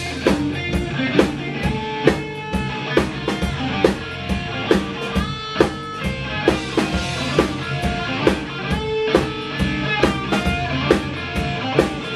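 A rock band playing live: electric guitar notes over bass guitar and a drum kit, an instrumental passage without vocals.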